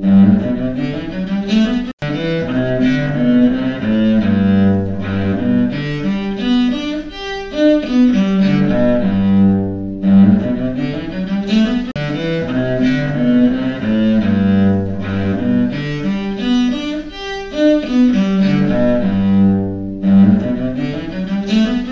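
Solo cello playing a slow melodic passage of bowed notes, heard as binaural stereo renderings. The same passage starts over about every ten seconds, and the sound cuts out for a moment about two seconds in.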